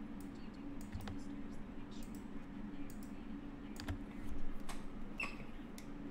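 Scattered clicks and taps of a computer keyboard being worked, over a steady low hum.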